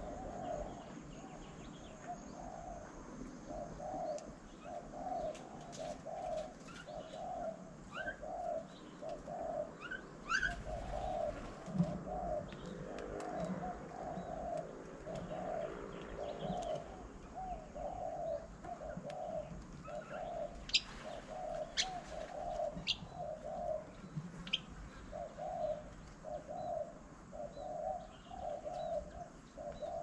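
A dove cooing over and over, short low coo notes repeated in little groups with brief gaps, while other birds give a few short high chirps and sharp ticks now and then, most of them past the middle.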